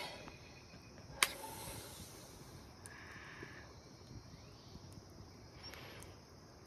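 Faint hiss and crackle of a wood fire burning in a clay stove, with one sharp pop about a second in.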